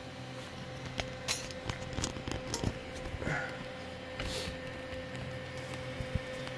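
Steady low machine hum with scattered light clicks and knocks, and a brief hiss a little past four seconds in.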